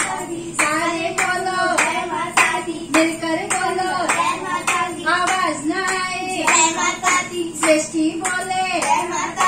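Voices singing together with rhythmic hand clapping, about two claps a second.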